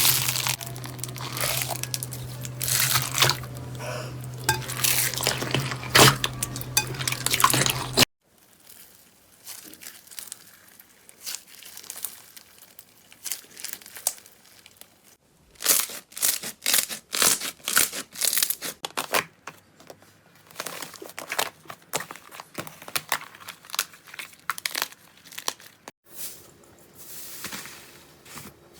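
Slime being squeezed and poked, with dense crackling and popping clicks, in several separate stretches that cut off abruptly from one to the next.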